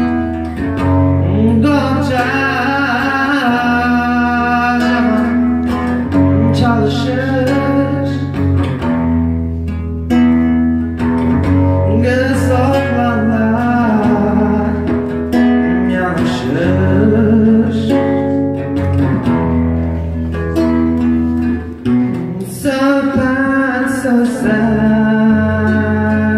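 A man sings through a microphone to a picked and strummed acoustic guitar, a live amplified song. The guitar plays alone at first, and the voice comes in about a second and a half in.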